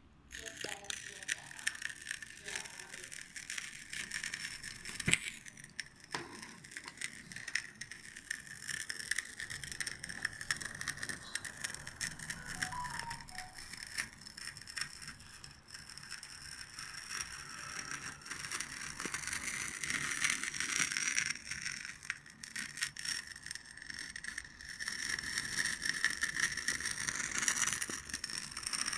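A burning candle crackling and sputtering continuously with many tiny clicks over a steady high hiss, with one sharper pop about five seconds in.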